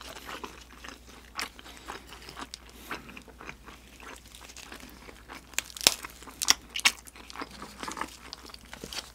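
Close-miked chewing of a mouthful of grilled eel, with scattered crisp clicks and crunches; a cluster of the sharpest ones comes about six to seven seconds in.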